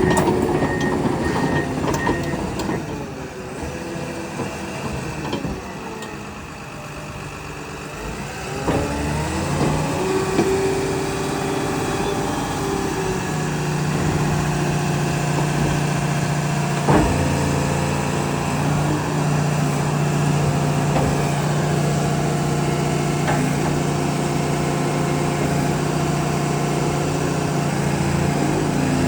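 Komatsu D61PXi-24 bulldozer's diesel engine running: it drops to a lower, quieter note a few seconds in, then rises again and settles into a steady, louder hum at higher engine speed for the rest of the time. A single sharp knock sounds partway through.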